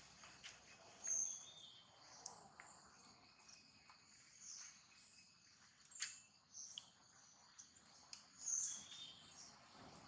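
Quiet outdoor ambience with short, high-pitched chirps every second or two and a few faint clicks.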